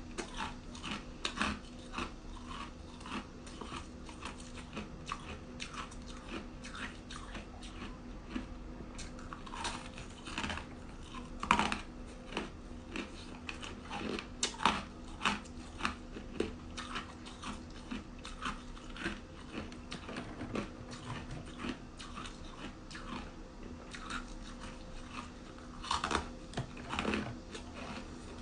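Ice being bitten and chewed close to the microphone: a run of irregular crunches, several a second, with a few louder bites, over a faint steady hum.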